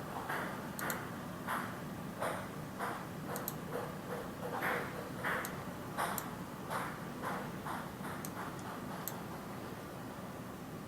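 Irregular light clicks and ticks, about one or two a second, from the test setup as the input value is changed back and forth to swing the gauge pointers.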